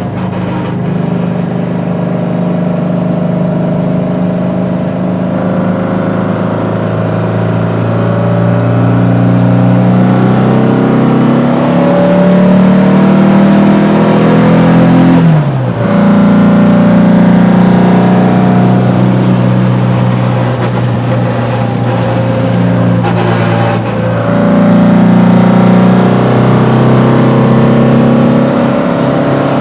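VW Beetle's 2275 cc air-cooled flat-four with Weber IDF carburettors, running through a merge-collector exhaust and heard from inside the cabin while driving. The engine note climbs under acceleration, drops sharply at a gear change about halfway, then climbs again.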